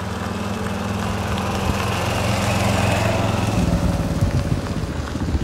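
Small engine of the vehicle carrying the riders running steadily, its note changing and growing rougher about three and a half seconds in.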